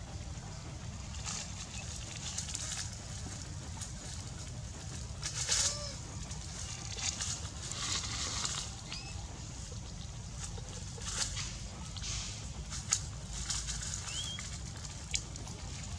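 Dry leaf litter rustling and crackling in short bursts as macaques shift about on it, with a few brief high squeaks over a steady low rumble.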